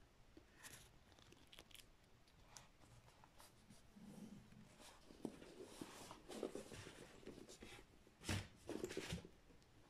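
Faint handling noise of a cardboard accessory box and a plastic drone remote controller being moved on a wooden tabletop: small scrapes, rustles and clicks, with a couple of sharper knocks near the end.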